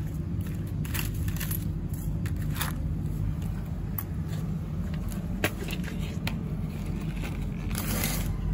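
Refrigerated vending machine running with a steady low hum, with a few scattered sharp clicks and knocks as coins are handled and put into it.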